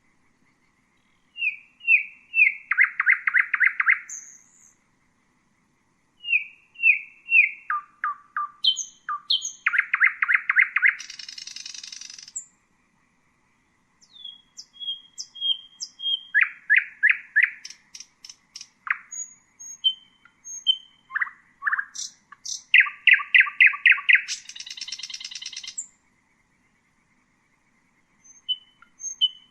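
Common nightingale singing in four separate phrases, each a few seconds long, with short silences between them. Each phrase is built of rapid runs of repeated short notes, some sharp and whistled, some buzzy.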